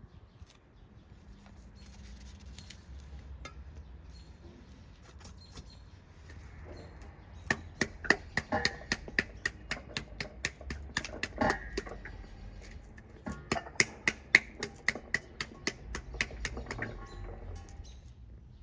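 Pomegranate being seeded by hand over an enamel basin: a run of sharp clicks, three or four a second, in two spells through the second half. Before that, only a faint scraping of a knife scoring the peel.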